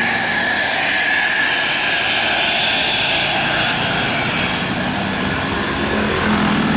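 Bus engine running hard under load, a loud steady noisy drone; a deeper engine hum comes in near the end.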